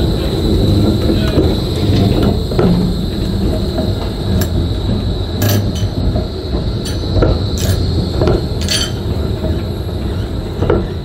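Bombardier Flexity E-class tram rolling slowly round a curved depot track: a low rumble with a steady high squeal from the steel wheels on the curve, and several sharp clicks and clunks from the running gear.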